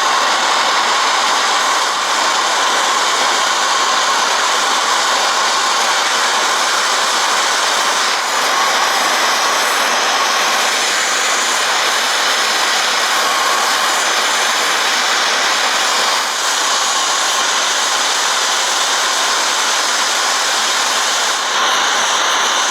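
Blowtorch flame hissing steadily at full blast, with only slight dips, as it heats corroded broken bolts in an outboard gear case to free them.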